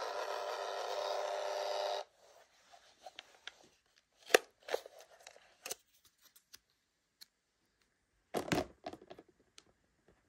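DYMO handheld label maker printing a label: a steady motor whir that stops abruptly about two seconds in. Then a sharp click, like the tape cutter, about four seconds in, small crackles as the label's backing is peeled off, and a short rustle of handling near the end.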